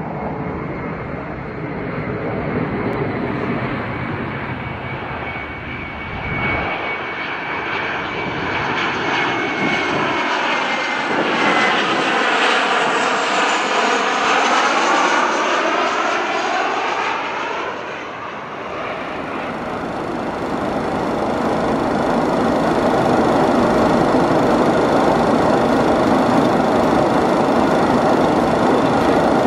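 Boeing 737 jet engines passing close by on landing, a steady high whine over a broad rush, the sound sweeping in pitch as the plane goes by. It settles into a louder, steady rush for the last third.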